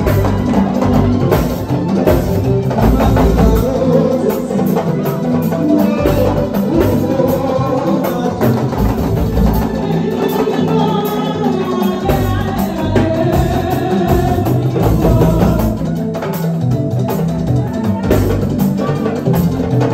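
Live mbalax band playing: drums and percussion keep a driving beat under keyboard. A voice sings over the band about halfway through.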